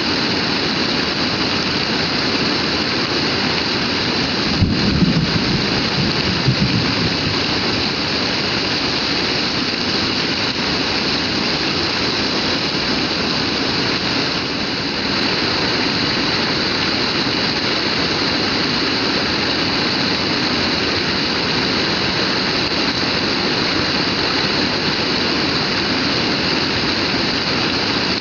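Heavy rain pouring down in a steady, dense hiss. About five seconds in there is a sharp knock followed by a brief low rumble lasting a couple of seconds.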